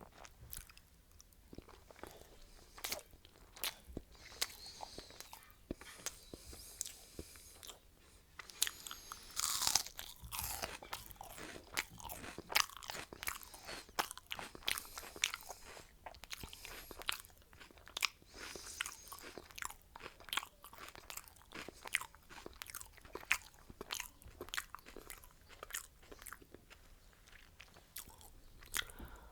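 Close-miked chewing and crunching of food: an irregular run of sharp crunches, several a second.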